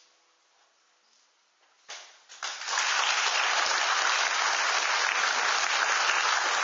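A grand piano's last chord fades out, then about two seconds in a few first claps and the audience breaks into steady applause.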